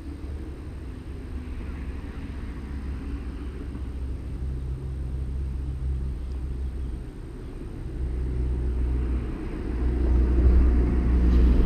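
Low rumble of a motor vehicle's engine, swelling louder over the last few seconds.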